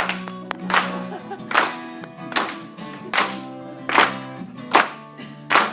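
Instrumental break in a pop song: a steady clap beat, about one stroke every 0.8 seconds, over held chords.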